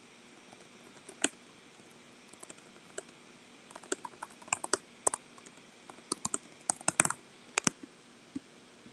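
Typing on a computer keyboard: irregular key clicks in short flurries, starting about a second in and busiest past the middle, with a last lone tap near the end.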